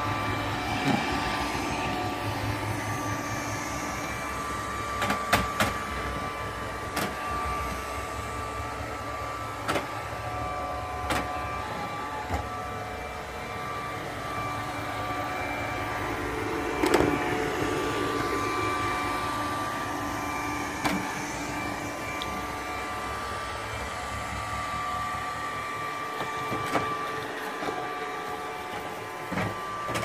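Robot vacuum cleaner running: a steady motor and brush whine with several held tones, broken by a few short sharp knocks scattered through.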